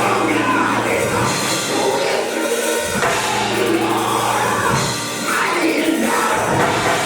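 Church music: singing with instrumental accompaniment, sustained bass notes changing every couple of seconds.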